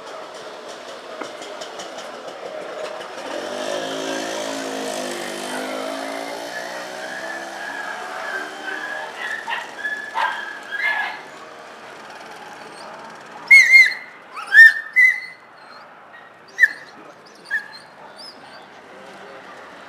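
A motor vehicle passes, its engine note rising and then falling. Later a dog barks sharply about six times, two quick pairs and then two single barks, and these barks are the loudest sounds.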